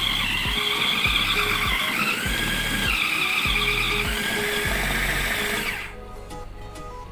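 Food processor motor running as it grinds ground beef into meatball paste, a steady whirr whose pitch wavers, then switched off about six seconds in.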